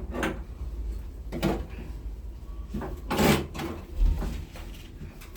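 A few separate knocks and clunks of things being handled, the loudest about three seconds in, with a low thud just after, over a steady low rumble.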